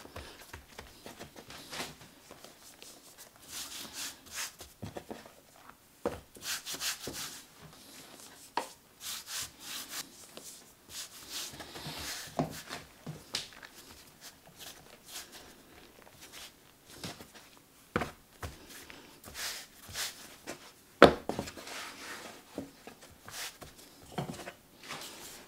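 Hands rubbing, pressing and patting a floured roll of dough on a wooden board: soft, irregular rubbing swishes with scattered light taps, and one sharper knock on the board about four-fifths of the way through.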